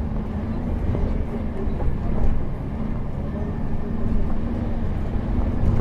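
Bus engine running steadily, with a low rumble of the wheels on a rough road.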